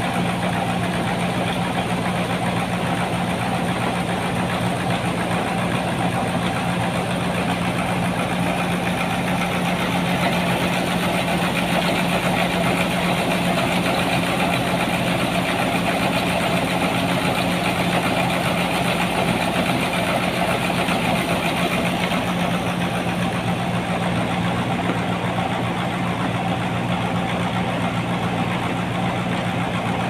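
Sawmill engine running steadily, a constant low hum over a dense hiss; the higher part of the hiss drops away about three-quarters of the way through.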